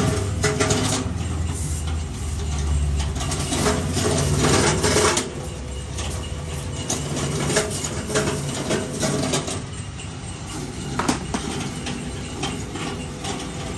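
Electric sugarcane-cleaning machine running while cane stalks are pushed through it, its rotating scrapers rasping and clattering against the stalks' outer skin over a low motor hum. It is louder for the first five seconds or so, then quieter, with a few sharp knocks later on.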